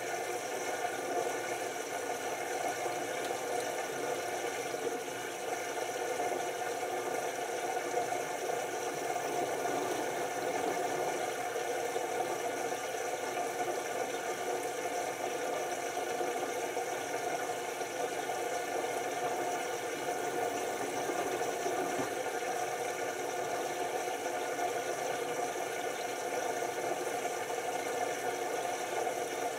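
LG TurboWash 6 Motion front-loading washing machine in its first rinse: the direct-drive drum tumbling wet laundry, a steady run of motor and drum noise with water and wet clothes swishing inside.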